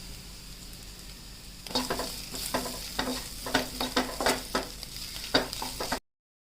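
Food sizzling in a frying pan; from about two seconds in, a utensil stirring it, knocking and scraping against the pan many times, before the sound cuts off abruptly near the end.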